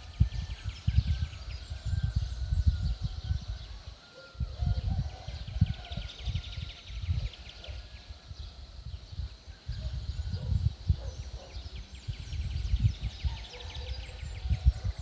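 Birds singing rapid trills and chirps, over loud, irregular low gusts of wind buffeting the microphone.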